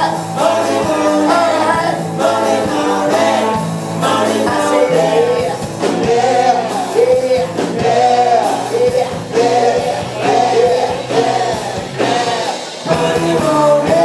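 Live rock and roll band playing with singing over a steady beat, stopping right at the end.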